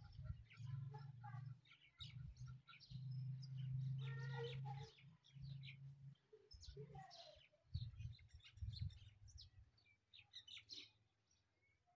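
Chukar partridge and other birds giving short chirping calls, over a low hum that stops and starts and dies away near the end.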